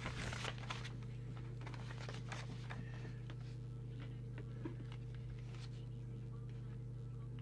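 Steady low electrical hum, with a few faint rustles and taps of a finger on a paper manual page.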